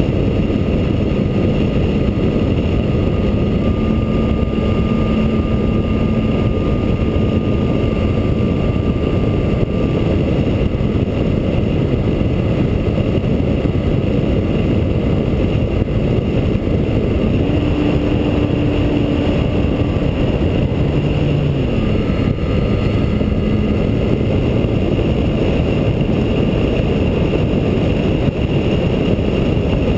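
Radio-controlled T-28 Trojan model airplane in flight, heard from a camera under its wing: a heavy rush of wind on the microphone over the steady drone of its motor and propeller. The drone steps up in pitch about two-thirds of the way through and drops back a few seconds later.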